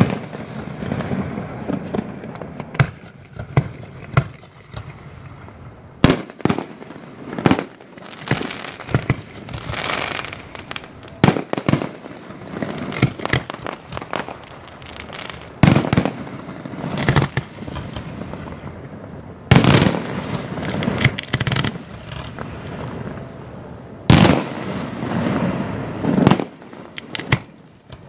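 Aerial firework shells going off in a display: a string of sharp bangs every one to four seconds, the loudest about six seconds in, near the middle and about a second before the end, with crackling between the reports.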